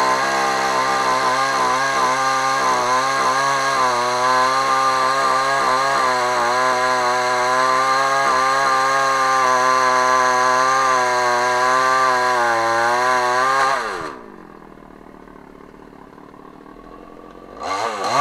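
Patriot GS142 41 cc two-stroke chainsaw running steadily at high revs. About 14 seconds in, the revs fall away quickly and it goes much quieter. Near the end it revs up briefly and drops back.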